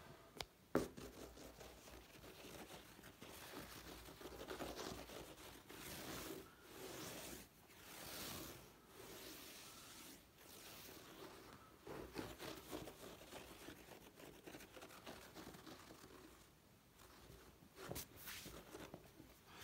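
Faint rustling and scuffling of kittens playing on blankets and cushions, with a sharp knock about a second in and another near the end.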